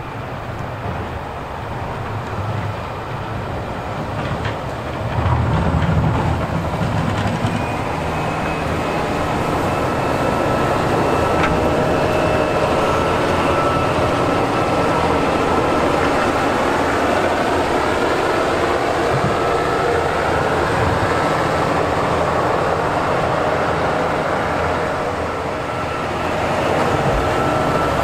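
Volvo wheel loader plowing snow: its diesel engine runs under load over a rough, steady scraping rumble, with a faint steady whine on top. It gets louder about five seconds in.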